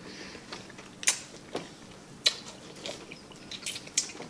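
Metal knife and fork on a ceramic plate while steak is cut: several sharp clinks and taps, spaced roughly half a second to a second apart.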